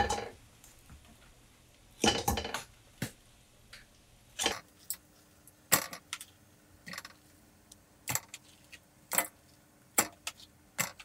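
Metal tongs clacking and roasted beef bones knocking into a stainless steel stockpot as they are moved in one by one, a short clatter about once a second.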